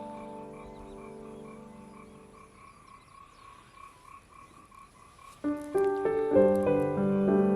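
Frogs calling, a fast, evenly repeated croak that goes on steadily under the last of a decaying piano chord. Piano music comes back in loudly about five seconds in.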